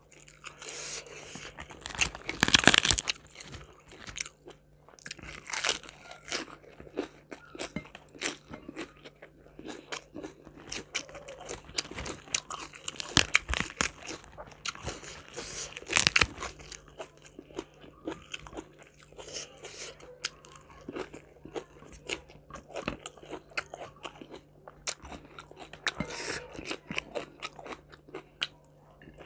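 Close-miked eating: crunchy bites of crispy fried chicken and wet chewing, irregular and continuous, with the loudest crunches about two and a half seconds in and again around thirteen and sixteen seconds.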